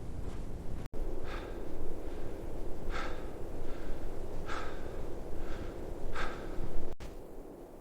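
A person breathing heavily: about five loud breaths, one every second or so, over a steady low rushing noise.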